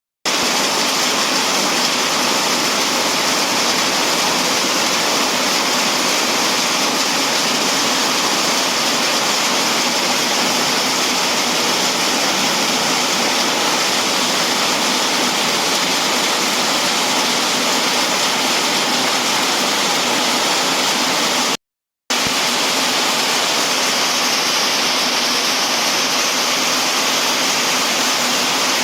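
Heavy rain pouring down steadily, a dense even hiss, broken by a short dropout to silence about three-quarters through.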